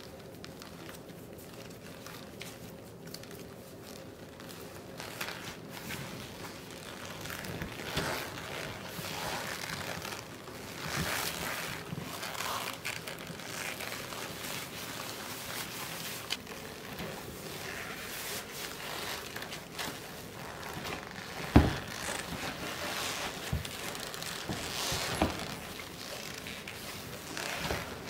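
Leather clothing being handled: black leather pants rustle and creak as a pant leg is adjusted and a red leather lace-up boot is pulled on, in irregular spells that pick up after the first few seconds. A single sharp knock comes about three quarters of the way through.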